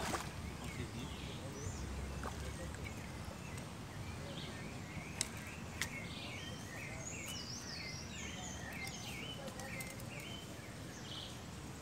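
Birds chirping and singing over steady outdoor background noise, with a run of quick repeated notes past the middle and a couple of faint sharp clicks.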